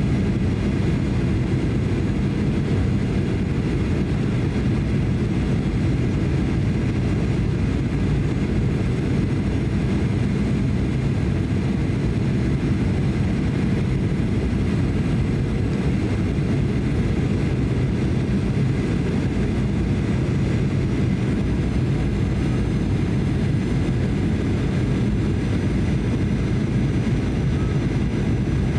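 Cabin noise inside a Boeing 737-800 airliner in flight: a steady low drone of its CFM56-7B engines and rushing air, with faint steady high-pitched whine tones above it.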